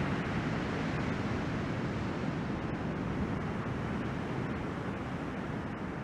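Steady rush of breaking surf and whitewater washing in, mixed with wind on the microphone.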